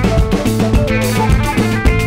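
Background music: plucked guitar over a bass line and drum kit with a steady beat.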